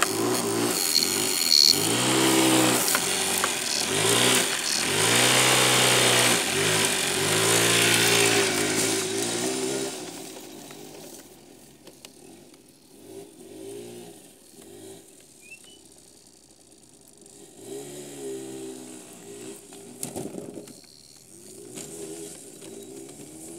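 Motor scooter engine revving as it pulls away, its pitch rising and falling several times over the first ten seconds. It then fades into the distance, heard faintly with occasional swells as the rider opens the throttle.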